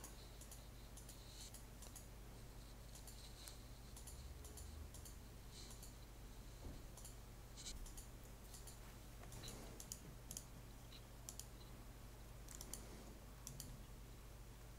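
Faint, irregular computer mouse clicks as points of a path are placed one after another, over a low steady hum.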